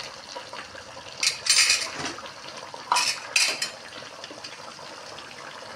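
Metal spoon clinking and scraping against a metal karahi in a few short clattering bursts, about a second in and again around three seconds in, over a faint steady hiss.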